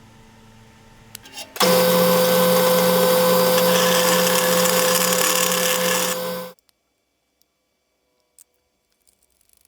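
An electric power tool's motor runs at a steady speed for about five seconds with a steady hum, starting suddenly about a second and a half in and cutting off abruptly.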